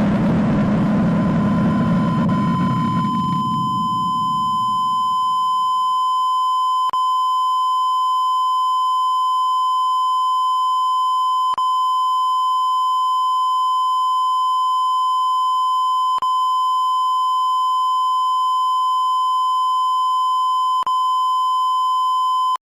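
A steady, pure 1 kHz tone like a broadcast test tone, with a faint click about every four and a half seconds, cutting off abruptly near the end. At the start it lies under a loud low noise that fades away over the first four seconds or so.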